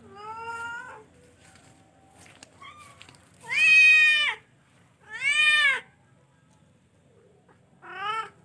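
A young charcoal F1 cat meowing four times. The second meow is the loudest and longest, and the last is short.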